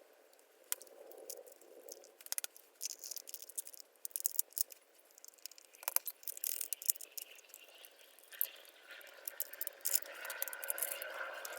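Irregular clicks, taps and light rattling of small hard parts being handled, growing busier in the second half.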